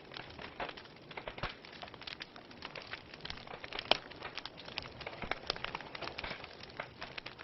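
Campfire wood burning: irregular crackles and snaps over a soft hiss, with one sharper pop about four seconds in.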